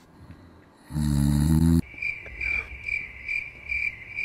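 A short, loud, low droning sound about a second in, then cricket chirping: one high, even chirp repeated about two to three times a second, used here as an edited comedy sound effect.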